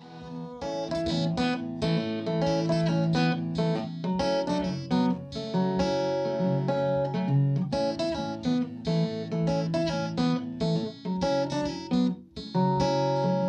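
Steel-string acoustic guitar strumming chords in a steady rhythm, an instrumental song intro with no singing yet; it fades in over the first second.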